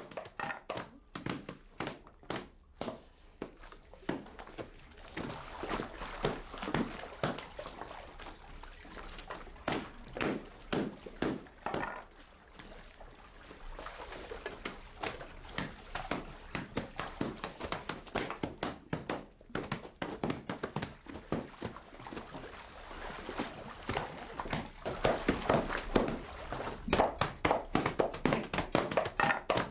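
Wet laundry being slapped and scrubbed against the edge of a washing basin, with splashing water: irregular knocks and slaps, a few each second, busier and louder near the end.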